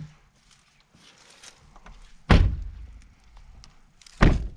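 Two doors of a Chevrolet pickup truck slammed shut, one about two seconds in and the other near the end, each a heavy, deep thunk.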